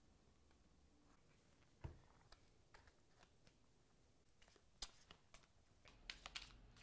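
A deck of playing cards being shuffled by hand: faint scattered clicks and snaps of the cards, a soft thump about two seconds in, and quicker flicks near the end.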